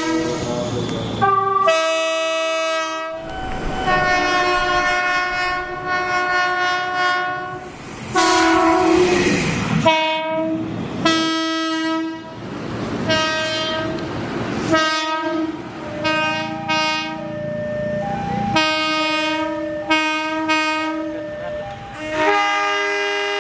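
Indonesian train locomotive air horns sounding a rapid series of blasts, some short toots and some held for a few seconds, each a chord of several steady tones, the chord changing from blast to blast as different horns sound in turn.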